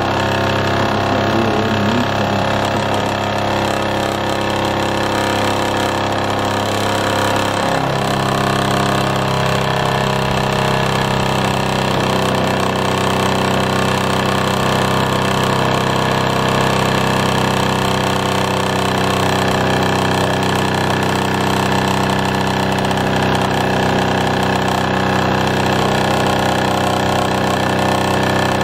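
Mamod SP4 toy steam engine running steadily at speed, a continuous fast mechanical chuffing. Its running note changes about eight seconds in.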